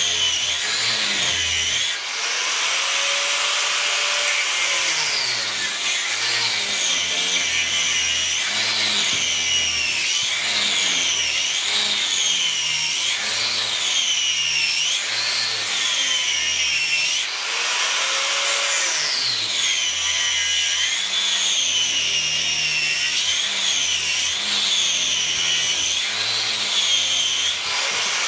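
Angle grinder with a cut-off wheel cutting through an electric motor stator's copper windings and steel core. Its high whine sags in pitch each time the wheel bites into the cut and climbs again as the load eases, rising highest twice, when the wheel comes free.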